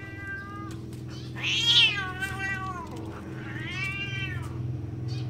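Cat yowling defensively at a dog: three long, drawn-out meows that rise and fall in pitch, the middle one the loudest.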